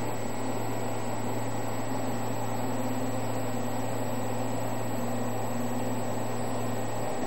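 Diesel engine of a tracked foundation drilling rig running steadily under load as the rig hoists its tool up out of the ground, a constant low drone; the deepest part of the drone fades near the end.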